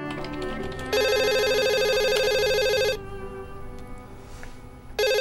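Desk telephone ringing with a steady electronic ring: one ring starting about a second in and lasting about two seconds, then a second ring starting near the end.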